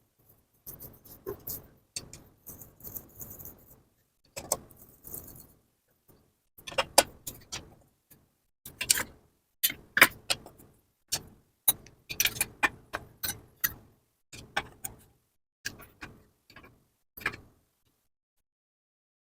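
Metal tools and engine parts clinking and knocking as they are handled during a motorcycle engine teardown, in irregular bursts, some strikes ringing sharply.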